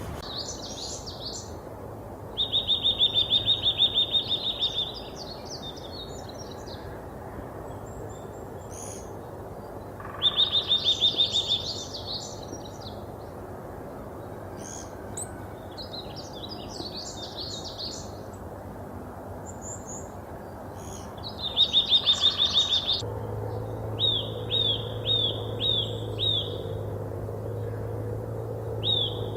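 Birds singing: fast high trills that come back every several seconds, with scattered chirps between them. Near the end, a series of short down-slurred notes about two a second takes over, over a low steady hum.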